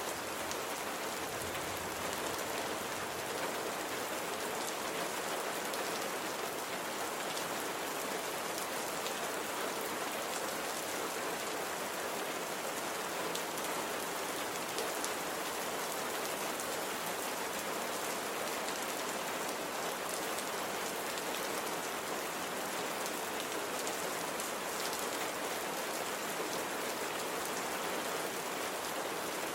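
Steady rain falling on a surface, an even hiss with fine pattering of drops.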